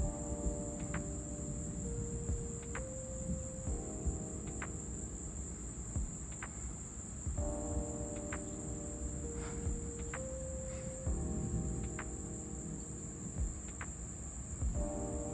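Crickets trilling in a steady, continuous high chorus over a steady low rumble.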